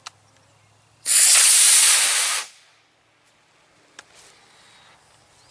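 Estes Outlaw model rocket's solid-propellant motor firing at liftoff: a loud rushing hiss that starts about a second in, lasts about a second and a half, then dies away quickly.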